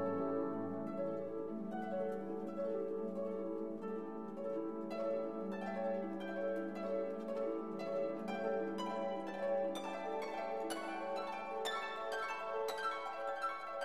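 Background music played on plucked strings in a light, harp-like run of notes, the plucking growing busier from about five seconds in.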